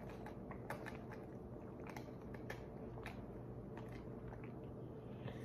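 Faint gulps and swallows of a person drinking water from a plastic bottle: a few soft, irregular clicks over a low steady hum.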